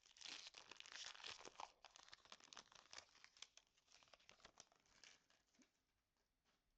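Foil wrapper of a Pokémon Stellar Crown booster pack being crinkled and torn open, a dense crackling rustle that dies away about five seconds in.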